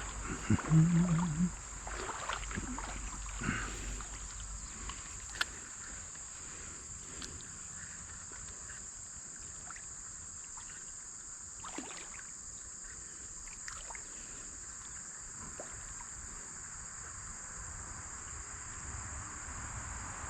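Steady high-pitched insect buzzing over quiet creekside ambience, with a few brief knocks and water-stirring sounds in the first few seconds.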